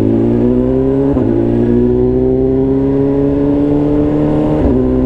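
BMW S1000RR inline-four engine running under light throttle while riding, its pitch climbing slowly as the bike gathers speed. There are brief breaks in the engine note about a second in and again near the end.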